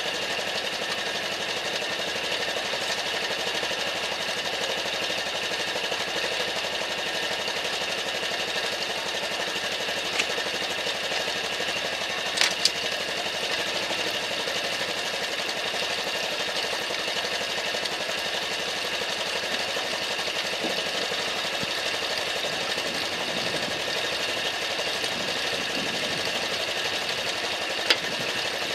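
Honda Super Cub's small single-cylinder four-stroke engine idling steadily, with a few brief clicks.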